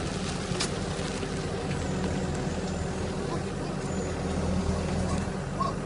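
Excavator's diesel engine running steadily, with a brief click about half a second in.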